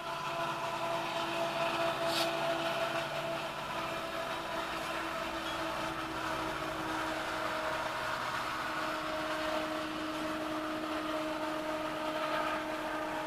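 Norfolk Southern freight train rolling past with a steady rumble and hum from its locomotive and cars, with one sharp clank about two seconds in, heard from inside a parked car.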